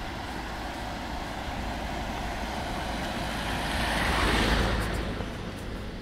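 A car driving past on a narrow road: its engine and tyre noise grows, is loudest about four and a half seconds in, then fades away.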